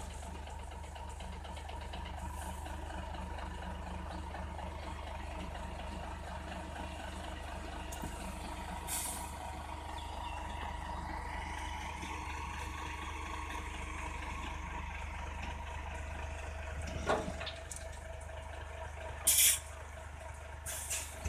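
Diesel dump truck's engine running at low revs as the truck creeps forward after tipping its load of crushed stone. Short hisses of released air from its air brakes, a faint one about nine seconds in and a louder one near the end, with a single knock shortly before it.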